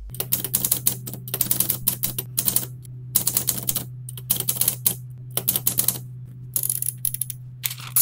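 Manual typewriter being typed on: quick runs of sharp keystroke clacks, the type bars striking paper on the platen, broken by short pauses between words.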